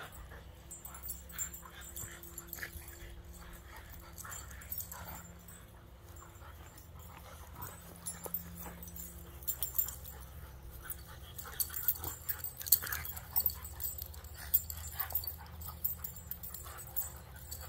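Puppies play-wrestling, making brief dog sounds now and then, with the short sharp sounds coming more often and louder in the second half.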